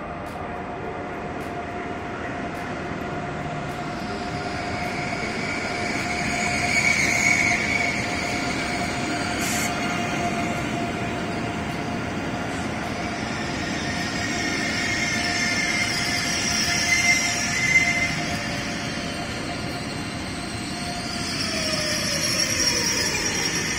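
ICE high-speed electric train rolling in alongside a station platform: a steady rolling rush with a steady whine, and high squeals twice. Near the end the whine glides down in pitch as the train slows.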